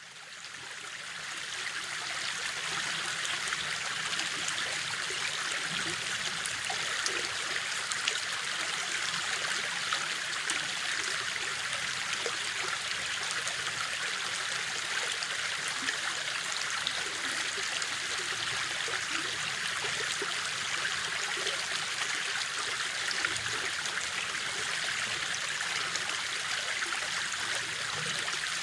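River water rushing and splashing in a steady, even flow. It fades in over the first couple of seconds.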